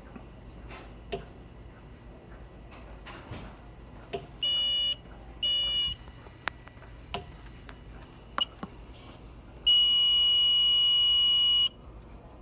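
Hardwired 2098-9201 smoke detector sounding its high, shrill alarm: two short half-second blasts about a second apart, then one steady two-second blast near the end. It is alarming on metered test smoke at its sensitivity threshold. Light clicks and taps of handling come in between.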